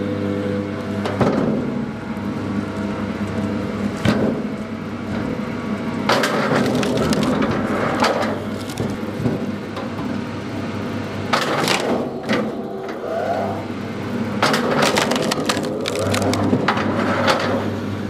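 Log splitter running with a steady motor hum while logs are forced onto its wedge and split, cracking and splintering every few seconds.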